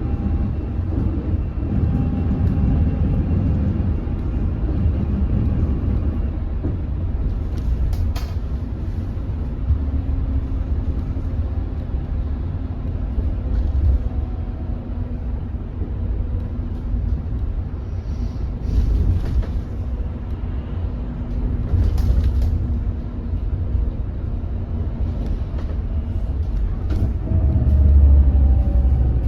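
Inside a moving hydrogen fuel-cell city bus: low road rumble under the thin whine of the electric drive motor, with a few clicks and rattles. Near the end the whine slides down in pitch. The motor noise is what the uploader calls a strange sound from the motor.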